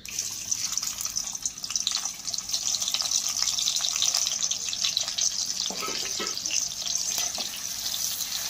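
Sliced onions sizzling and crackling in hot mustard oil in a kadai, starting suddenly as they hit the oil, with a spatula stirring through them near the end.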